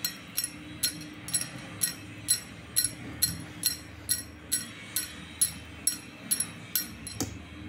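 Small wire whisk beating thick batter in a bowl, its wires clicking against the bowl's side about twice a second in an even rhythm, over a steady low hum.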